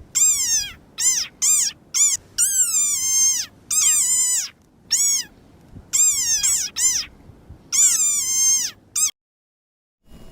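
High-pitched squeaky frog noises dubbed in for a character's speech: a run of short squeaks, each rising then falling in pitch, in quick irregular groups. They stop about nine seconds in.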